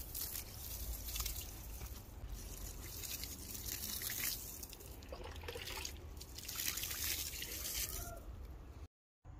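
Water poured from a container onto dry grass-clipping mulch, pouring and pattering through the grass. It cuts off suddenly near the end.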